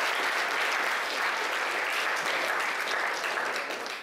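Audience applauding, dense and steady, thinning out slightly near the end.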